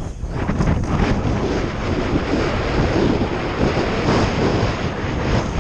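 Downhill mountain bike descending fast on a rough dirt trail: wind rushing over the helmet-mounted microphone together with the steady rumble and rattle of tyres and bike on the ground. It is briefly quieter just after the start.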